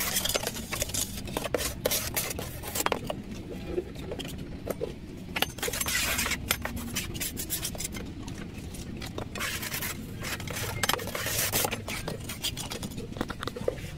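Hand trowel scraping concrete mix and tapping against a precast baluster mould as the concrete is packed and smoothed: many short clicks and taps, with longer scraping strokes about halfway through and again near the end.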